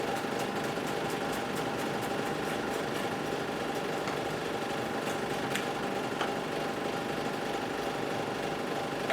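A steady machine-like hum, with faint knife taps on a cutting board as a garlic clove is finely diced; the taps are quick and frequent in the first few seconds, then there are a couple more later.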